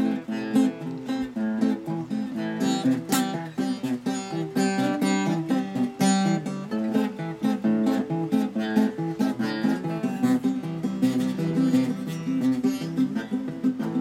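Acoustic guitar played in a quick run of picked notes with occasional strummed chords.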